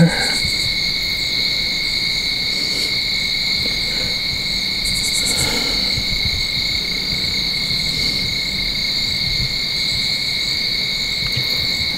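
Steady chorus of night insects such as crickets, a continuous high trilling that does not break.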